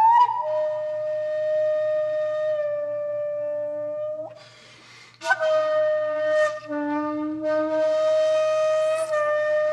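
Background music: a solo flute playing long held notes, with a short breathy pause about four and a half seconds in and breathy attacks on the notes that follow.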